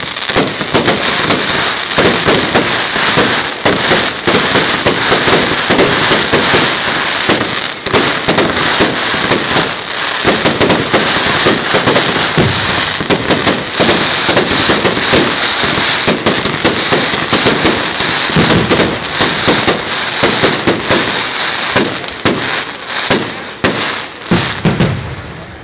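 Fireworks barrage: a dense, continuous run of bangs and crackling shells overlapping without a pause, cutting off sharply just before the end.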